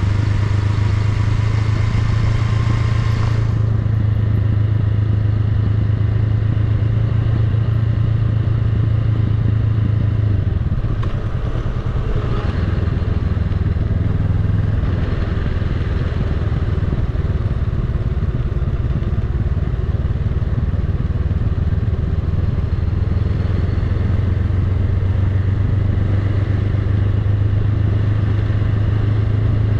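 Honda Rebel 500's parallel-twin engine running steadily at low revs under riding, with a low hum and a haze of wind and road noise. The engine note eases briefly about a third of the way through, then settles back.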